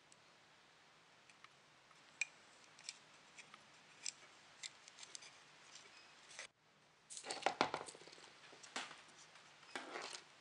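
Small clicks and ticks of electronic components and their wire leads being handled and fitted on a perforated prototyping board, with a denser, louder run of clicking and rustling about seven seconds in.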